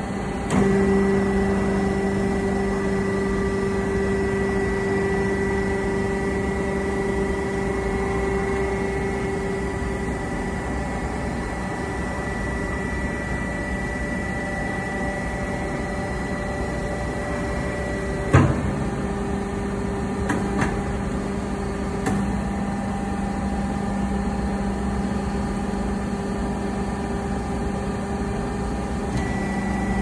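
Vertical hydraulic baling press's electric motor and hydraulic pump running with a steady hum, louder over the first ten seconds while the ram travels. A sharp clank about eighteen seconds in, then a couple of lighter clicks.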